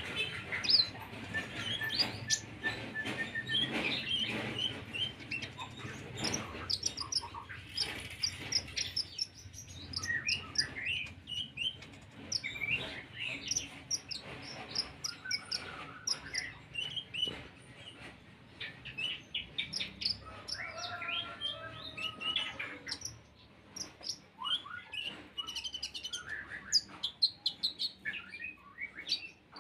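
Kolibri ninja sunbird singing a fast, varied song of high chirps and short trills. The song is filled with imitated cricket phrases.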